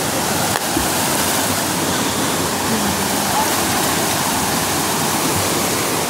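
Steady rush of a small waterfall, water cascading over and between boulders in a rocky river.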